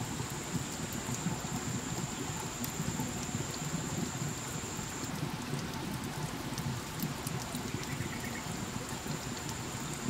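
Water dripping onto wet rock and leaves: a dense, even patter of drops like light rain. A thin, steady high tone stops about halfway through and returns near the end.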